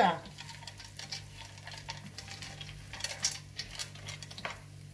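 Faint kitchen handling sounds: light clinks, taps and scrapes of kitchenware being moved, a few of them louder about three seconds in and near the end, over a steady low hum.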